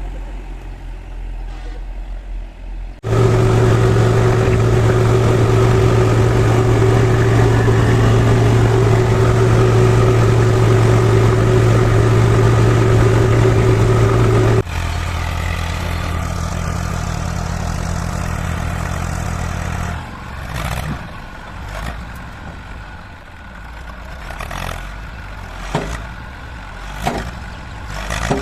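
Heavy diesel engine running: moderate at first, then suddenly much louder and steady under high revs for about twelve seconds, dropping abruptly to a lower steady run. In the last third the engine is quieter and irregular knocks and clanks sound over it.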